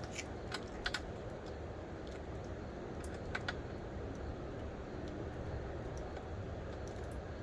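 Scattered light clicks of a 5 mm hex key working the chain adjuster screws on a Honda Rebel 1100's swingarm. A few come in the first second and a pair about three seconds in, over a steady low hum.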